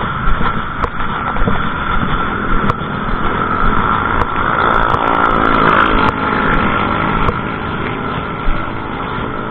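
Steady road traffic noise, with a vehicle engine passing close by and loudest around the middle.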